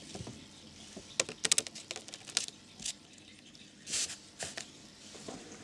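An irregular series of sharp clicks and taps over a faint steady hiss, with a quick cluster about a second in and a longer scratchy burst about four seconds in.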